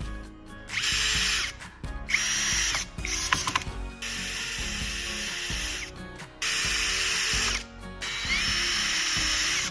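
Power drill driving screws in about six short runs of one to two seconds each, every run starting with a brief rising whine as the motor spins up, with short pauses between.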